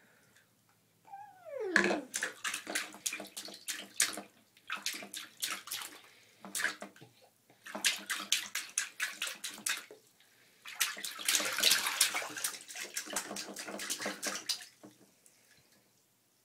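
Bathwater splashing in a baby bathtub, in four bursts of quick splashes with short pauses between them. About a second in, a brief falling squeal from the baby.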